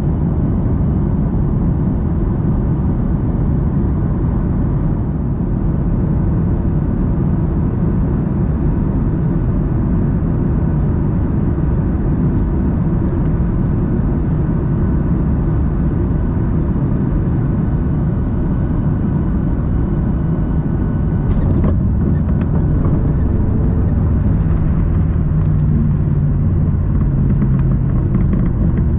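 Steady roar of a Boeing 737 MAX 8 cabin on final approach: airflow and CFM LEAP-1B engines. A few knocks come about three-quarters through, and then a deeper rumble near the end as the jet reaches the runway.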